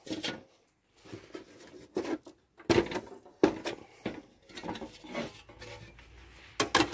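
Thin titanium panels of a folding wood stove being folded and handled: a series of irregular light metal clanks and knocks, with softer rubbing between them.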